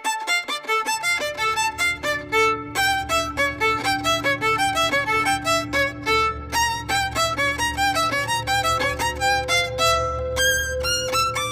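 Background music led by a violin playing quick, detached notes over a steady low drone.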